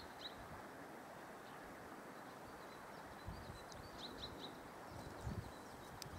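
Faint outdoor ambience: a steady low hiss with a few quick, high bird chirps at the very start and a short cluster of them about four seconds in.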